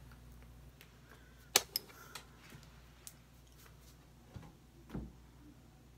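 A few sharp clicks and taps from handling an eyeliner pencil and a hand mirror, the loudest about one and a half seconds in and a duller knock near the end.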